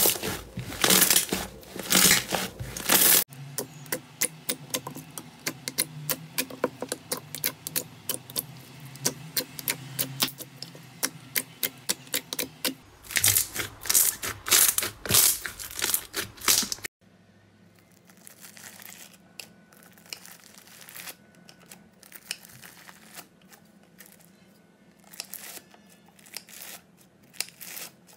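Slime being squeezed and stretched by hand, giving dense crackling, popping clicks and tearing sounds. It comes in several short segments that change abruptly about 3, 13 and 17 seconds in, and the last stretch is much quieter.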